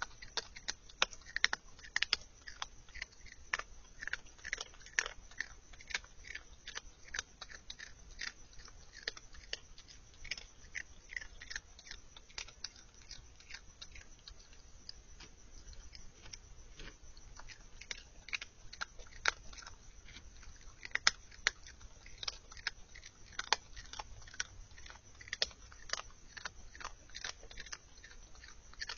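Virginia opossum chewing dry kibble up close: irregular crunches and clicks of the teeth, several a second, with no let-up.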